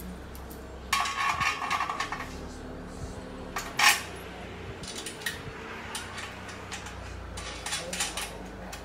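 Small metal bolts, washers and tools clinking and rattling against the steel frame of home exercise equipment as it is bolted together: a burst of quick rattling about a second in, one sharp clank near four seconds, then lighter scattered clicks.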